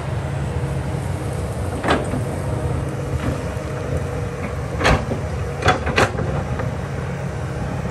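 Kobelco excavator's diesel engine running steadily, with four sharp knocks from the machine at work, about two, five and six seconds in.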